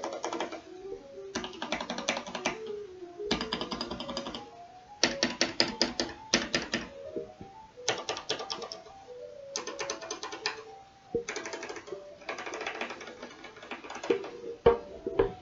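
Custom GK61 mechanical keyboard with lubed Gateron Yellow linear switches being typed on, microphone close to the keys: bursts of rapid keystroke clacks with brief pauses between them.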